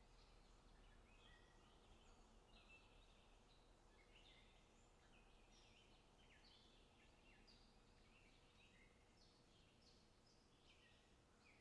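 Faint chorus of several birds calling, a busy run of short chirps and quick whistled notes that overlap without pause, over a low steady hum.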